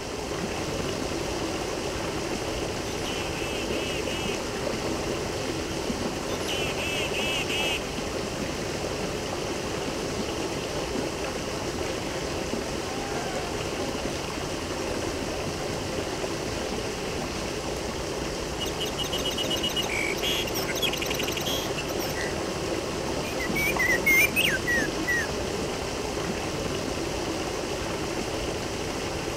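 Steady rush of flowing water, with birds chirping in short bursts several times over it; the loudest chirps come near the end.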